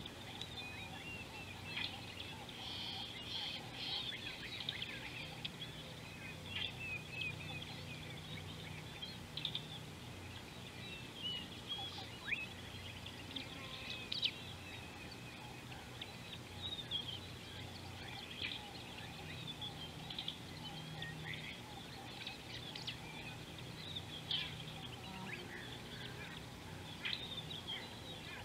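Several wild birds chirping and calling, a busy scatter of short high notes and quick sweeps through the whole stretch, with a faint low hum coming and going underneath.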